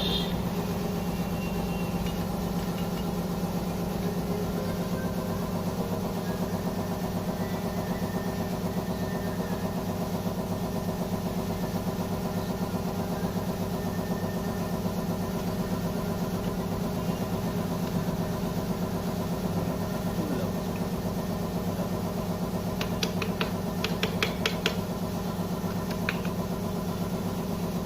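A motor running steadily with an even mechanical hum, with a cluster of sharp clicks about 23 to 25 seconds in.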